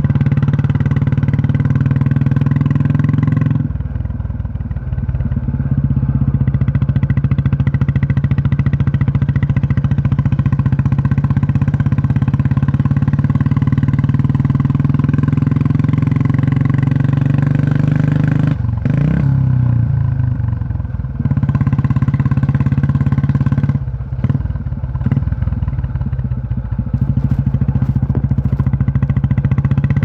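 Old-model Royal Enfield Bullet Electra 350's cast-iron single-cylinder four-stroke engine thumping steadily on the move. Its beat drops away briefly and picks up again a few times, with a short rise in pitch after the dip about two-thirds of the way through.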